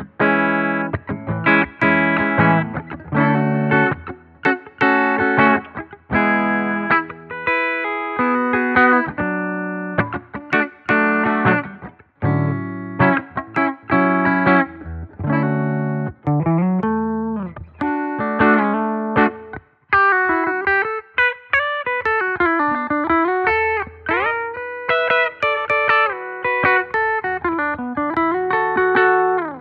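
Donner Hush-X headless electric guitar played with a clean tone in passive pickup mode. Chords are struck over the first half, then from about halfway a single-note lead line follows with string bends and vibrato.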